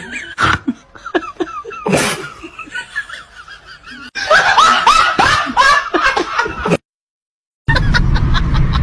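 Laughter, loudest from about four seconds in, after a couple of sharp knocks near the start. It cuts off abruptly, and after a short silence a car's low engine and road rumble begins.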